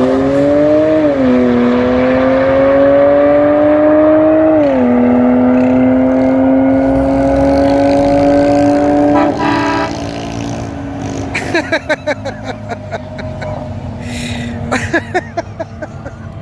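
A car engine accelerating hard at full throttle: its note climbs, drops sharply at two upshifts about one and four and a half seconds in, then rises slowly through a long pull before fading out about ten seconds in. After that a quieter, rougher engine pulses on.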